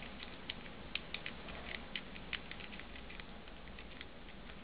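Lock pick and tension wrench working in the keyway of a small 30 mm laminated padlock: irregular light metallic clicks and ticks as the pins are worked, coming thick at first and thinning out later.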